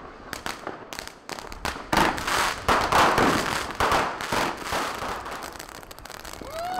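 Ground fireworks and firecrackers going off in a rapid, irregular string of bangs and crackles. They are densest in the middle and thin out toward the end.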